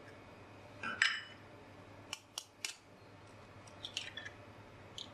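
Eggs being cracked into a bowl: a few light knocks and sharp clicks of shell against the rim, the loudest about a second in.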